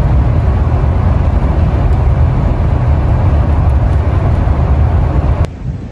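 Steady low engine and road rumble inside a vehicle cruising at highway speed, cutting off abruptly near the end.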